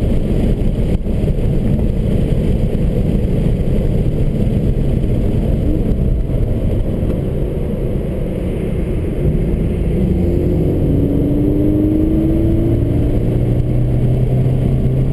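Subaru BRZ's flat-four engine and road noise heard from inside the cabin while being driven hard. The sound dips a little just past halfway, then the engine note climbs as the car pulls again.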